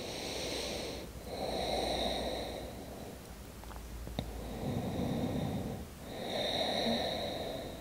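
A woman's slow, deep breathing heard close on a wireless clip-on microphone: a run of breaths in and out, each about a second to a second and a half long.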